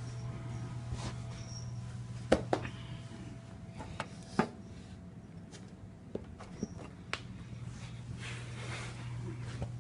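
Handling noise: scattered sharp clicks and taps, about seven in all, over a steady low hum, with a faint high chirp once or twice.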